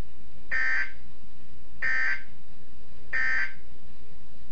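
Weather radio SAME digital alert data: three short, buzzy electronic bursts, each under half a second, about 1.3 seconds apart.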